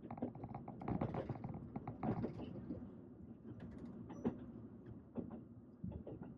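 A train running: a steady low rumble with irregular clattering and knocks, busiest about a second in.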